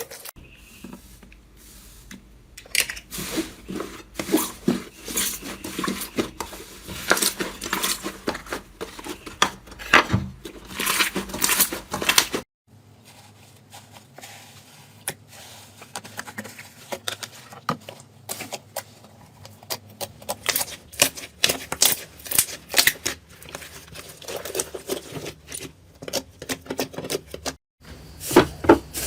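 Slime being squeezed, poked and stretched by hand, giving dense runs of crackling clicks and small pops as trapped air bursts. The sound breaks off abruptly twice as one clip gives way to another.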